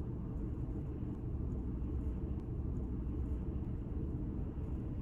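Steady low rumble inside a car's cabin.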